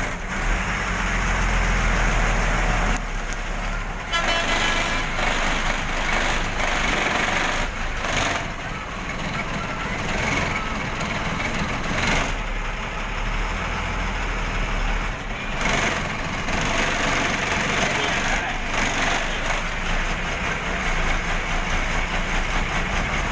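Engine of a large vehicle running at low speed, heard from inside its cab, under a steady rushing noise.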